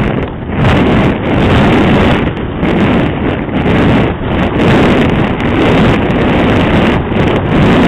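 Loud, gusting wind rushing over the onboard camera microphone of a model aircraft in flight, surging and easing as the plane banks.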